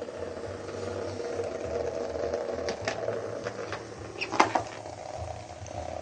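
Small vibrating bug toys, cheap Hexbug Nano knock-offs, buzzing steadily as they skitter over the plastic floor of a laundry basket. A few knocks against the plastic basket come as the cat moves in it, the loudest about four and a half seconds in.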